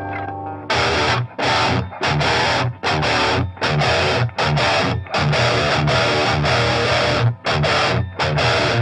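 Distorted electric guitar played through a Line 6 Helix amp model with a 2x12 cabinet impulse response, heard in the room from an Electro-Voice powered speaker. A chord rings at the start, then heavy chugging riffs broken by short stops.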